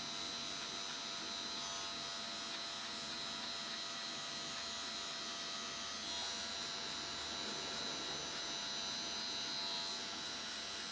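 Wahl Magic Clip cordless hair clipper running steadily as it is worked over short hair at the side of the head, fading the hairline.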